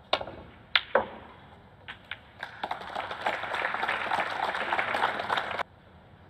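Snooker cue tip striking the cue ball, then two sharp ball-on-ball clicks about a second in and lighter knocks of balls off the cushions. Audience applause follows for about three seconds and cuts off abruptly near the end.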